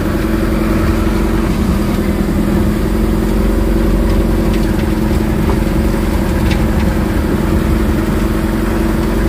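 Truck engine running at a steady pitch while the truck drives slowly, heard from inside the cab.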